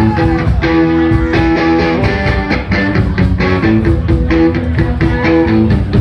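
Live rock band playing a loud instrumental passage: electric guitar with drums and bass, no vocals.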